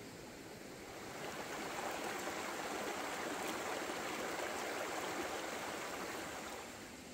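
Stream water rushing and splashing over rocks, swelling up about a second in and falling back to a quieter hiss near the end.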